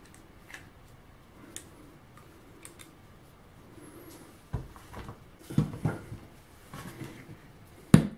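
Light clicks, then a run of knocks and rattles as a metal pocket-hole jig is handled: its locking lever and toggle clamp worked and a wooden strip set into it. The sharpest knock comes near the end.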